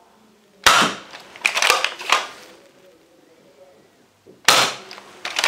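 NERF Commander Elite 2.0 pump-action foam-dart blaster firing twice, about four seconds apart. Each shot is a sharp snap followed by a couple of quick clacks.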